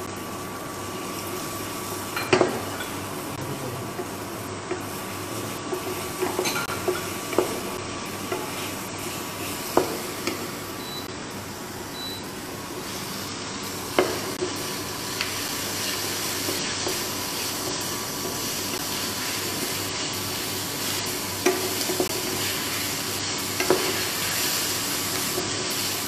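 Chopped onions and bell peppers sizzling in oil in a pan as they are stirred and sautéed, with a few sharp knocks of the stirring utensil against the pan. The sizzle grows louder about halfway through.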